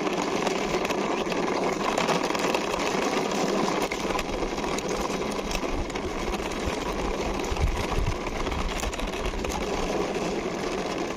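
Small toy car pushed along by hand, its wheels rolling with a steady, fine rattle that goes on without a break.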